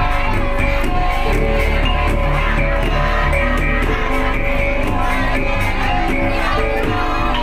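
Music playing loudly and steadily: held melodic notes changing in pitch over a heavy, continuous bass.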